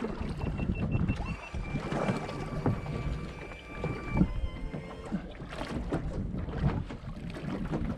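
Spinning reel's drag giving line with a steady high whine for the first four seconds or so, as a hooked snapper pulls against a backed-off drag. Behind it, water and wind wash around the small boat, with several sharp knocks from the rod and hull.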